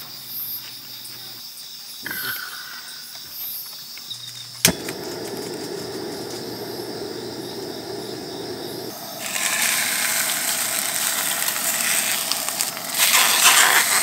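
Crickets chirping steadily, then a sharp click about four and a half seconds in as a camping gas stove is lit, followed by the burner's steady rushing hiss. The hiss turns louder and brighter in the second half.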